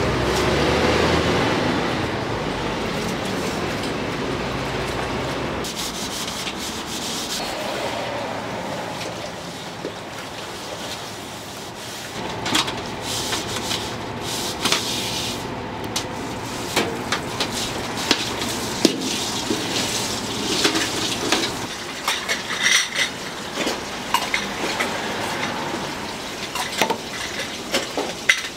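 Kitchen food-preparation sounds: a steady rubbing, scraping noise for the first dozen seconds, then irregular light knocks and clicks of utensils and dough work.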